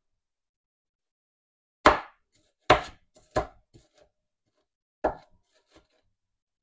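Kitchen knife chopping an onion on a plastic cutting board: four sharp chops at uneven intervals, with a few lighter taps between them.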